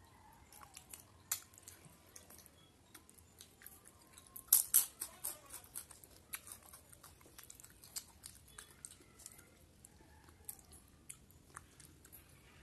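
Close-up eating sounds: wet chewing and lip smacks, with scattered sharp clicks, the loudest two about four and a half seconds in, while fingers mix food on a steel plate.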